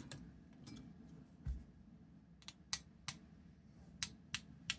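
A paintbrush tapped sharply again and again to flick splatters of watercolour paint, giving about eight short, irregularly spaced clicks, with a soft thump about one and a half seconds in.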